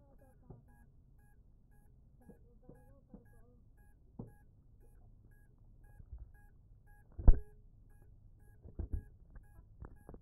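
Knocks and thumps of a landed mini quadcopter being handled and picked up, close to its onboard camera's microphone. The loudest is a sharp thump a little past seven seconds in, with a few more near the end. Under them runs a faint electronic beep that repeats evenly two or three times a second.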